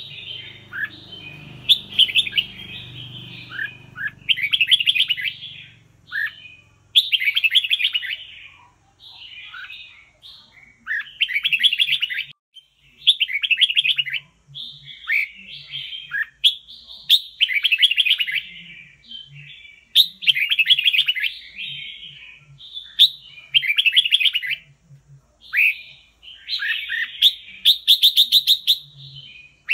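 Red-whiskered bulbul singing: short, bright chattering phrases repeated every second or two with brief pauses.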